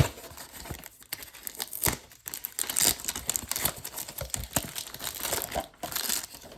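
Plastic packaging of a trading-card hanger box crinkling and tearing as it is pulled open by hand, a dense irregular crackle with a sharp snap at the start.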